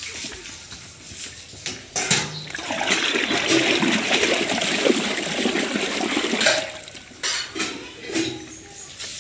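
A cow drinking from a water trough, its muzzle plunging in and sloshing and splashing the water. The splashing starts about two seconds in, runs loud for about four seconds, then dies down to a few scattered splashes.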